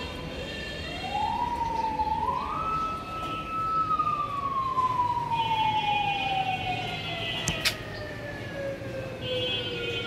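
A siren wails: it rises in two steps over the first few seconds, holds briefly, then falls slowly through the rest. Short high steady tones sound over it a few times, and there is one sharp click about seven and a half seconds in.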